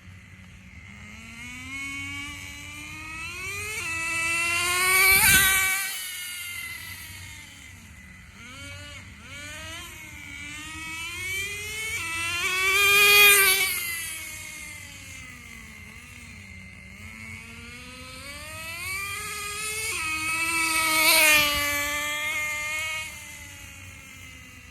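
Nitro RC car's .15 two-stroke glow engine revving as the car makes three fast passes, its pitch climbing and falling and its sound swelling and fading with each pass. The engine is running rough, which the driver says sounded terrible though it wasn't at full throttle and could use tuning.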